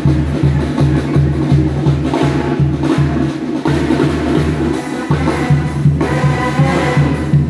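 Lively dance music with a steady, pulsing bass beat of about three beats a second and a melody over it. The melody comes through more strongly near the end.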